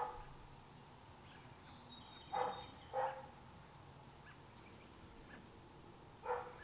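A dog barking: two short barks a little over two seconds in, about half a second apart, and another near the end. Faint bird chirps sound in between.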